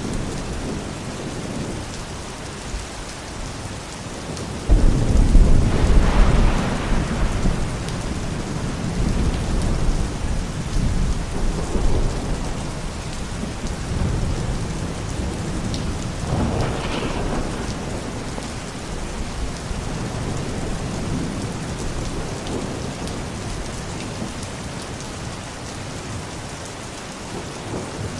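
Thunderstorm: steady rain hiss, with a sudden loud thunderclap about five seconds in that rolls on as rumbling for several seconds, and further softer rumbles of thunder later.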